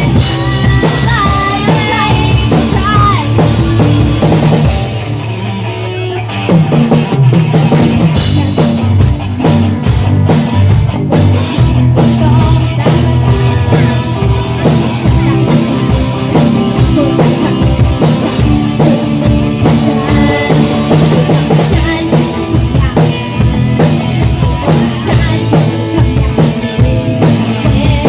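Live rock band playing, with the drum kit prominent. About five seconds in the band drops back briefly, then comes back in full with steady, evenly spaced drum hits.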